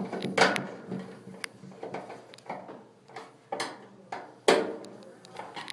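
A series of sharp clicks and knocks from dryer parts being handled during reassembly after a door switch replacement, the loudest about half a second in and again near the end.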